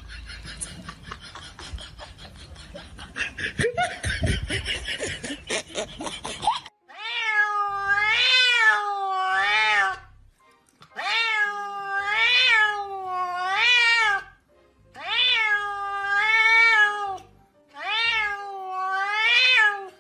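A cat meowing in four long drawn-out meows, each rising and falling in pitch, from about seven seconds in, over faint backing music. Before that there is a scratchy rustling noise with scattered clicks.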